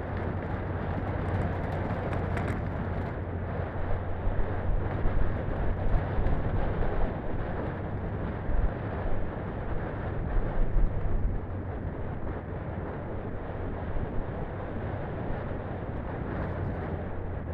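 A Daihatsu Feroza 4x4 driving along a gravel track: a steady low engine drone under the rush of tyres on loose gravel. Louder bumps and knocks come through over rough patches in the middle.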